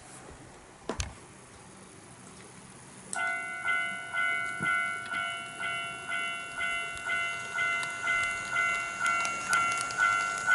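Model railway level-crossing alarm starting up about three seconds in: a ringing electronic bell struck a little over twice a second, growing louder. Two sharp clicks come shortly before it, about a second in.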